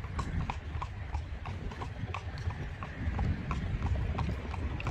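Horse's hooves clip-clopping on a paved path as it pulls a carriage, an even rhythm of about three to four clops a second over a low steady rumble.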